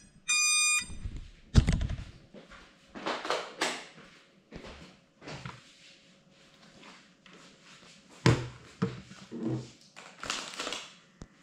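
An electronic beep at the very start, then a heavy thunk about a second and a half in as the GoPro-carrying FPV drone comes to rest on a counter-top. Scattered knocks and rustles of handling follow, with another sharp knock about eight seconds in, and no propeller whine.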